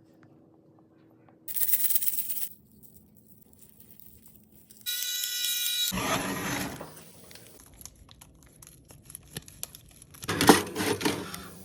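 A sequence of kitchen cooking sounds while making smashed potatoes: a brief rustling, crinkling burst, a short pitched tone, then a run of sharp, crisp clicks and crunches.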